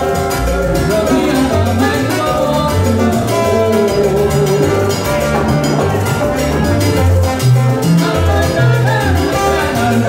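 Live salsa band playing, with congas, timbales and bongos over bass, keyboard and trombone.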